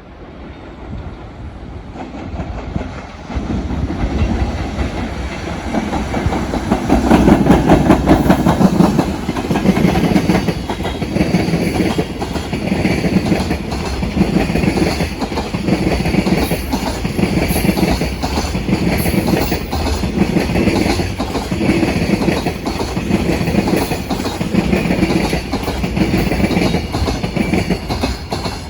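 Freight train passing: the EF210 electric locomotive goes by, loudest about seven seconds in, then the container wagons roll past with a regular clickety-clack of wheels over rail joints, a beat about every two seconds.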